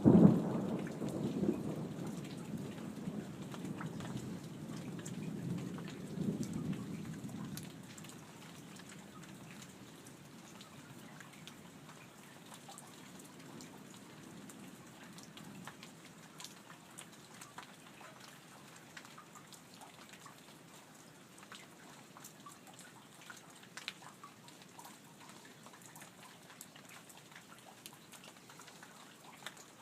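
Thunder rumbling, loudest right at the start and dying away over about eight seconds, over light steady rain with scattered drips.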